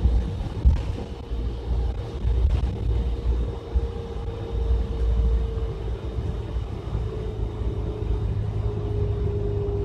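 Inside a moving city bus: steady engine and road rumble with a whine from the drivetrain that slowly drops in pitch.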